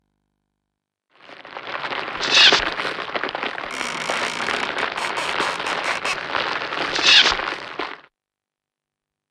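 Crackling, hissing fire sound effect under a flaming title card. It starts about a second in, swells with two swooshing sweeps, and cuts off suddenly about eight seconds in.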